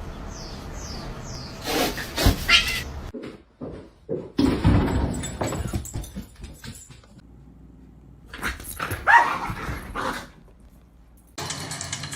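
Household pet vocalisations across several short clips, with a few brief pitched cries among household noise; drum-driven music cuts in near the end.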